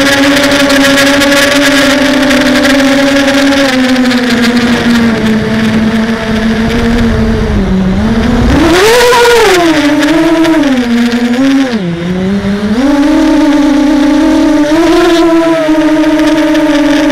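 Hexacopter's electric motors and propellers whining steadily, then swooping up and down in pitch several times about halfway through as the throttle works against gusts, with wind buffeting the microphone.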